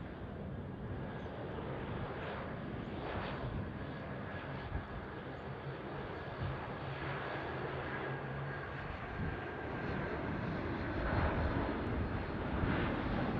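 Twin-engine widebody airliner's jet engines at takeoff thrust on the takeoff roll: a steady rumble with a thin high whine, getting louder near the end.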